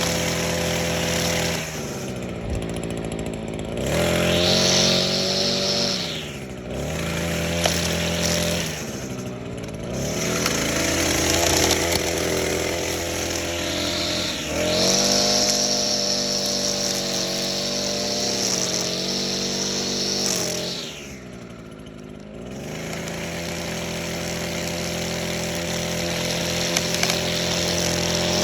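Echo SRM-225 string trimmer's small two-stroke engine running, revved to high speed several times and each time dropping back to a steady idle; the longest high-speed stretch lasts about five seconds, past the middle.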